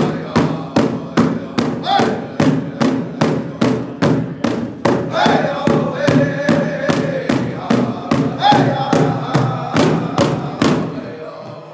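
Powwow drum group: several men striking one large drum together in a steady beat, a little under three strokes a second, while singing a powwow song in high voices. The drumming stops about a second before the end.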